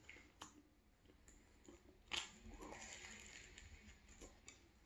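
Faint mouth sounds of a man chewing and biting a flaky croissant: a few soft scattered clicks and smacks.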